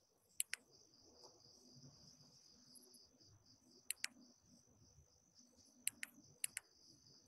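Faint steady chirring of night insects, with several sharp clicks that come in quick pairs.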